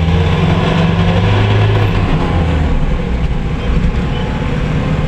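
Engine and road noise heard from inside a moving road vehicle: a steady hum whose pitch drops a little about two seconds in.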